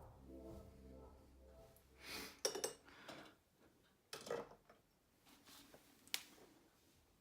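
Background music fading out, then a few faint, scattered clicks and knocks.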